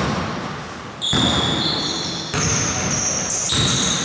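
Basketball dribbled on a wooden gym floor, about one bounce a second, echoing in the large hall.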